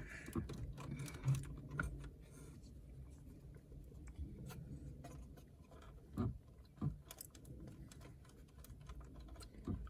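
Scattered light clicks and taps of plastic dash trim and wiring connectors being handled inside a car, with two louder knocks about six and seven seconds in.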